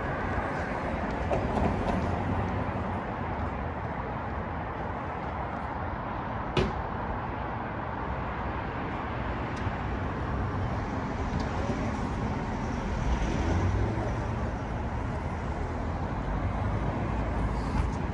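Steady road traffic noise from passing cars, with a single sharp click about six and a half seconds in.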